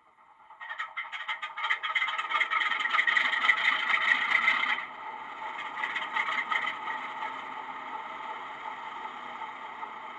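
DCC sound decoder in a model Class 47 diesel locomotive playing the Sulzer engine starting, through small speakers. A clattering start builds for a few seconds, then drops about five seconds in to a steady idle.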